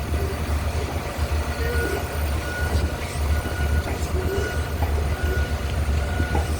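Heavy machinery running with a steady low hum, and a high warning beep repeating about every two-thirds of a second from about a second and a half in.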